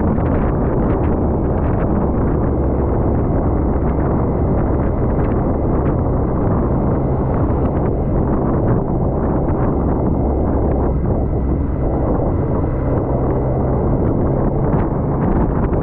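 Wind rushing over the microphone of a moving motorcycle, with the engine's low, steady drone underneath.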